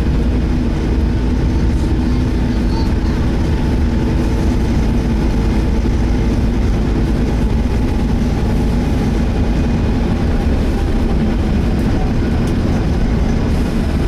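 Interior of a Volvo B7TL double-decker bus on the move: the six-cylinder diesel runs steadily under a low rumble, with the engine cooling fan's faint whirr over it, the fan trying to 'hoover'.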